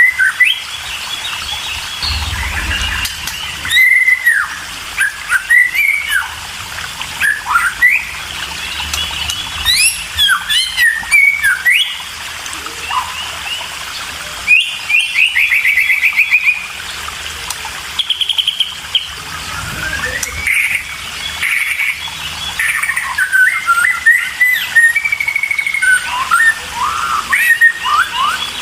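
Murai birds calling: a steady run of short chirps and whistled notes, many sliding up or down in pitch, with a quick trill of rapidly repeated notes about halfway through.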